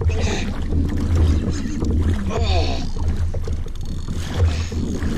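Wind buffeting the microphone with a steady low rumble, over water moving around a fishing kayak. A man grunts and exclaims a few times, straining against a big fish on a hard-bent rod.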